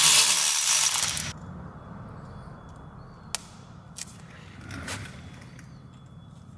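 Cordless electric ratchet running on a rear suspension bolt, stopping about a second in. A few light clicks and knocks follow as the parts are handled.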